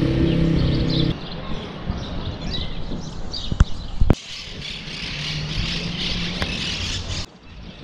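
Outdoor street-and-park ambience: small birds chirping over a steady engine hum that cuts off about a second in, then general traffic noise, with a few sharp clicks.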